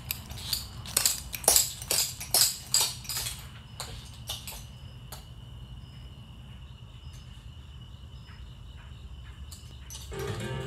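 Clogging shoe taps clicking on a concrete floor as someone walks, about two clicks a second, fading after about five seconds. A faint steady high-pitched tone follows, and music starts near the end.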